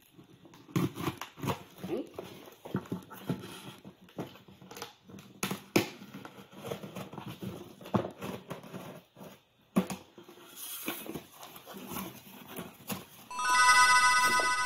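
Serrated kitchen knife sawing and scraping through packing tape on a cardboard box: irregular scrapes and clicks, with cardboard flaps being handled. Near the end a loud, high, steady whine comes in.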